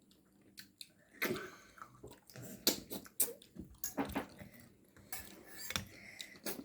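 Spoons clinking and scraping against soup bowls in a string of irregular sharp taps as people eat soup.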